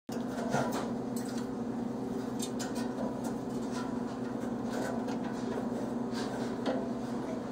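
Nylon cable ties being threaded around an LED strip and a metal bar and pulled tight: scattered short clicks and scrapes over a steady low hum.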